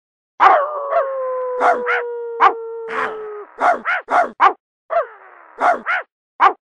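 A dog's voice: one long howl that falls slightly in pitch over about three seconds, then a string of short barks.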